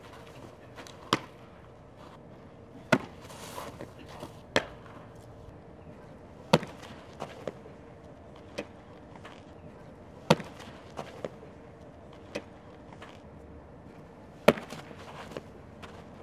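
Softballs smacking into leather gloves during an infield catching and throwing drill: sharp single pops every few seconds, some loud and close, others fainter from across the field.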